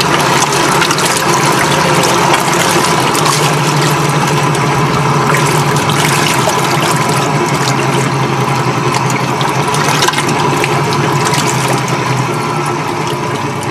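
Propeller of an electric outboard, a permanent magnet DC motor driving an old Suzuki two-stroke lower unit, churning water hard in a test barrel with heavy splashing. A steady motor and gear whine sits under the water noise, which is the main sound; the motor itself is pretty quiet. The drive eases off slightly near the end.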